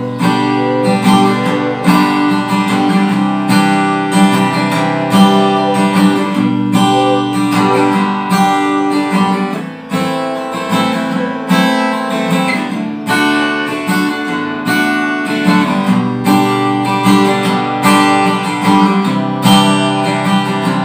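Handmade all-solid mahogany acoustic guitar strummed in a steady rhythm, its chords ringing on between strokes, picked up by a phone's microphone.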